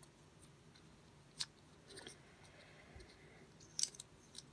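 Faint, sparse clicks and crinkles of plastic packaging being handled, with a sharp tap about a second and a half in and a couple more near the end.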